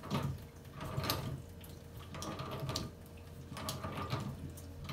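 Metal hand tool turned by hand on the compression fitting of a copper water stub-out, with short bursts of metal creaking and clicking about once a second.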